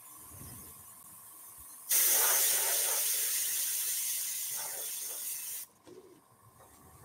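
Dual-action airbrush spraying paint through a stencil: a steady hiss of air that starts suddenly about two seconds in and cuts off sharply nearly four seconds later, when the trigger is released.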